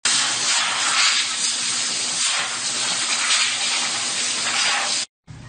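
A loud, steady hiss of pressurised air that cuts off abruptly about five seconds in.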